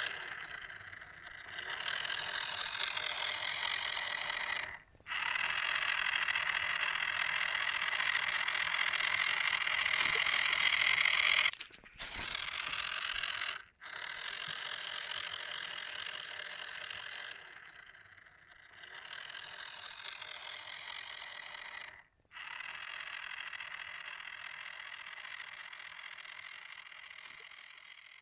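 Small electric motor driving paddle wheels through a small plastic gear train, whirring steadily and slowly changing pitch, rising for a while before cutting off. The sound breaks off abruptly three times.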